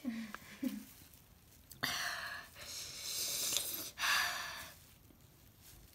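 A boy breathing hard through his open mouth: three long, noisy breaths in and out, starting about two seconds in, as he suffers the burn of a habanero pepper he has just eaten.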